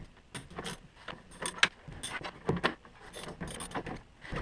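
Wrench clinking and scraping against metal at a bolt on a snowmobile's rear skid suspension: a string of irregular clicks and clanks, the sharpest about a second and a half in.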